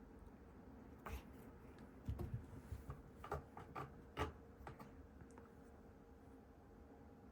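Faint scattered light clicks and taps, bunched from about a second in to four and a half seconds in, from a cat playing with a cat teaser wand toy.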